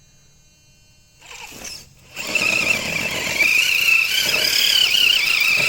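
RC crawler truck's electric motor and gearbox whining under load as it climbs, a high whine that wavers in pitch. It starts about two seconds in, after a brief short noise.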